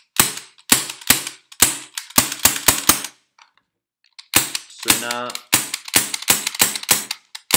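STTI MK23 non-blowback airsoft gas pistol with suppressor being fired over and over. Each shot is a sharp click that trails off briefly, with the trigger louder than the escaping gas. About eight quick shots come first, then a pause of about a second, then about nine more.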